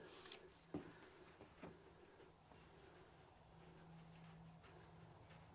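Near silence with a cricket chirping steadily, about four short high-pitched chirps a second, over a faint low hum.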